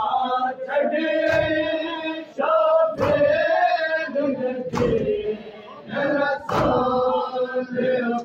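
Men chanting a nauha, a Shia mourning lament, in unison. The crowd's chest-beating (matam) lands together on the beat four times, about every second and three-quarters.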